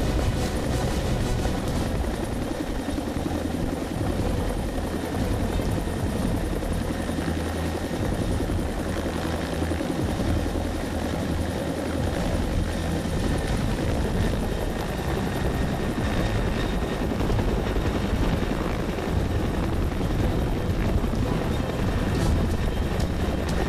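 Military helicopter hovering low overhead: a steady rotor and turbine din with a beating low throb. It is holding position with a line lowered for a sling-load lift.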